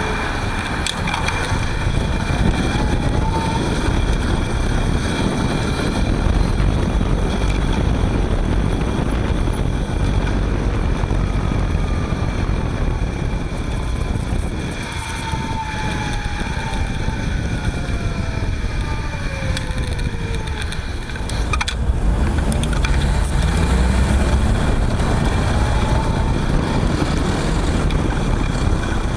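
Front hub motor of a Panasonic ViVi Charge WT electric-assist bicycle running while riding: a steady whine over road and wind noise. There is a hiss that the owner takes for grease in the hub motor stiffened by the cold, typical of the first few minutes of a winter ride. About halfway through, a tone falls in pitch over several seconds.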